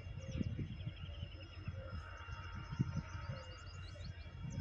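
Small birds chirping, with one rapid trill, over an uneven low rumble.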